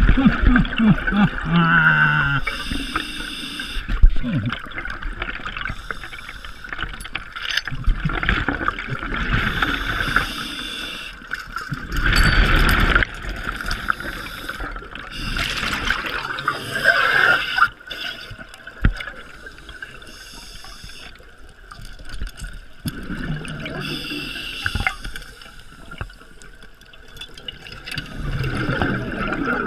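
Scuba regulator breathing heard underwater: a steady hiss with gurgling surges of exhaled bubbles every few seconds. There is a sharp knock about four seconds in.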